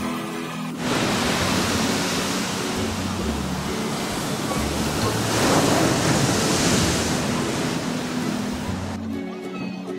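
Small waves breaking and washing up onto a sandy beach: a steady rush of surf that starts about a second in, swells in the middle and gives way near the end. Background music plays quietly beneath it throughout.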